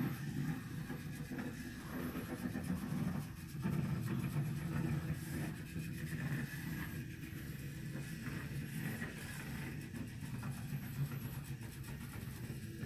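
Small wheeled micromouse robot's electric drive motors running as it drives through the maze: a steady low hum that dips briefly a few times.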